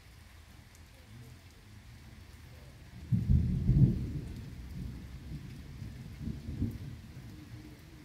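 Thunder during heavy rain: steady rain, then about three seconds in a loud, low clap of thunder that rumbles on for several seconds and swells again briefly before fading.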